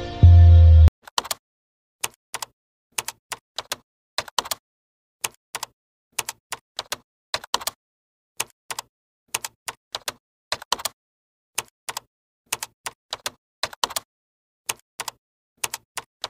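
Keyboard typing sound effect: sharp, irregular key clicks, about two to four a second, over dead silence, opened by a short low boom in the first second.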